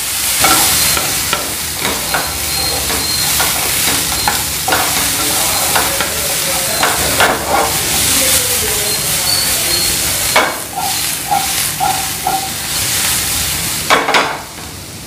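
Cauliflower florets, potato and capsicum pieces frying in oil in a non-stick frying pan while the pan is tossed, the vegetables sliding and tumbling against the pan: they are being sautéed until they change colour. It quietens about a second before the end as the pan comes to rest.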